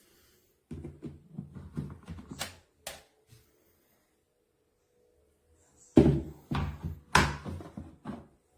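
Knocks and clatters of hard objects being handled, in two bursts: one about a second in, and a louder one about six seconds in with several sharp knocks.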